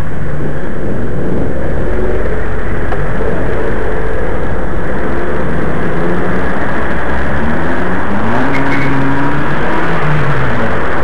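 Traffic heard from a moving bicycle: a loud, steady rush with car engines running close by. Near the end one engine's pitch rises and then falls.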